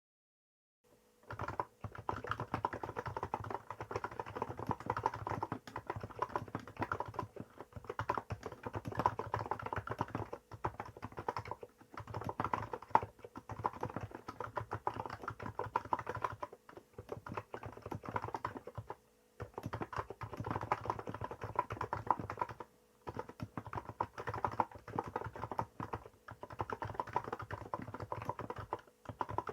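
Fast, continuous typing on a Hansung GK868B electro-capacitive keyboard with 50 g keys and Apple-style keycaps, starting about a second in and broken by a few short pauses.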